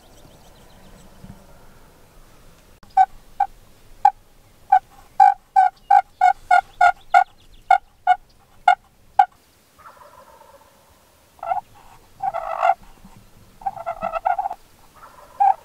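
Wild turkeys calling: a steady run of short yelps, about two or three a second for some six seconds, then several longer, rougher calls, with the yelps starting again at the end.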